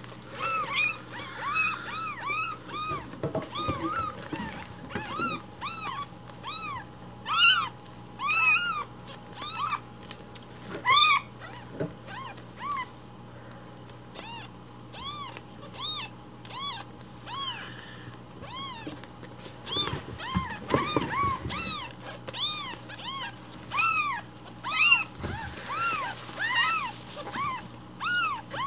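Newborn kittens mewing over and over in short, high, arching cries, about one or two a second with a brief lull midway: hungry unweaned kittens crying loudly to be fed milk.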